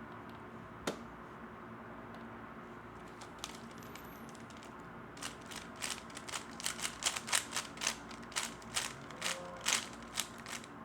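3x3 Rubik's Cube being turned. A couple of lone clicks, then from about halfway in, a rapid run of clicking and clacking as the layers are spun, several turns a second.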